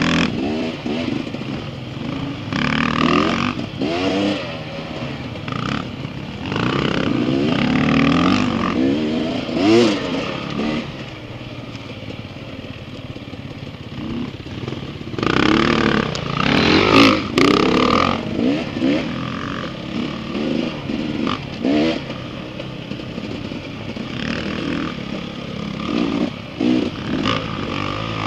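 Dirt bike engines revving up and down over and over as they ride a twisting trail, the pitch rising and falling every second or so. A few brief sharp clicks come about seventeen seconds in.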